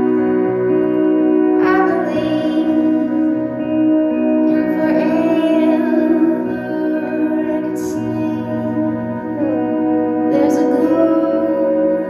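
Live music: electric and acoustic guitars playing slow, sustained chords over a held drone, with new chords struck about two, five and ten seconds in.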